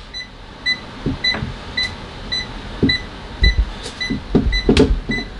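ANENG Q60 multimeter's buzzer beeping in non-contact voltage mode: short high beeps about twice a second, signalling that it senses live mains voltage at the light switch. A few soft knocks sound between the beeps.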